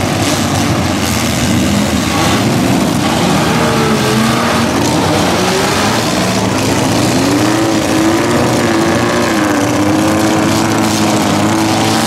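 Demolition derby mini trucks' engines revving and running hard as they ram and push one another, the pitch rising and falling.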